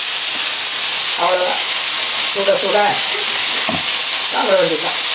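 Masala-coated fish pieces shallow-frying in hot oil in a pan: a steady, loud sizzle, the fish still cooking.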